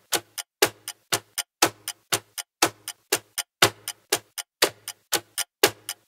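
Countdown-timer ticking sound effect, like a clock: sharp ticks about twice a second, each followed by a softer click.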